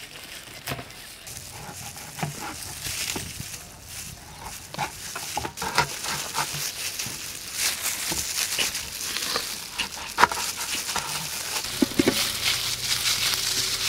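Knife cutting through jackfruit and chopping its pieces on a plastic cutting board: irregular knocks, clicks and scraping. Near the end, pieces drop into a steel bowl.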